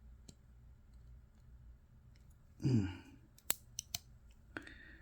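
Metal clicks of a Victorinox Swisstool implement being pulled out and snapping into place: three sharp clicks about three and a half seconds in, just after a short hum of a man's voice.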